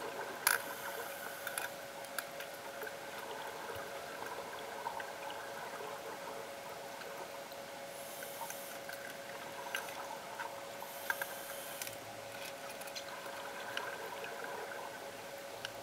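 Underwater pool sound: a steady hum, with scattered clicks and knocks as the scuba gear is handled and two bursts of hiss and bubbling from breaths through the diver's scuba regulator, about eight and eleven seconds in.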